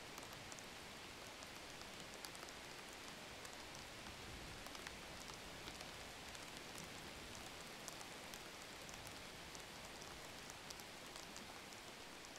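Faint rain pattering: a steady soft hiss with many light ticks scattered through it.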